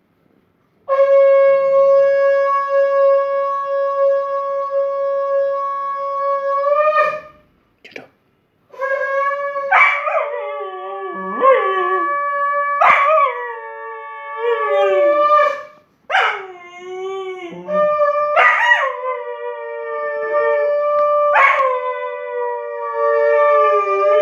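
A conch shell blown in one long steady note for about six seconds, rising slightly as it ends. After a short break it sounds again, and a cocker spaniel howls along with it in repeated howls that each start high and slide down in pitch.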